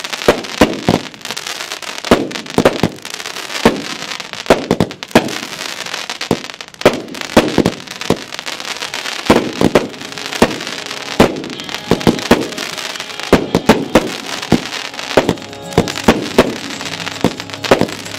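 Aerial fireworks, a cake firing shot after shot: sharp launch thumps and burst reports about one to two a second over a continuous hiss.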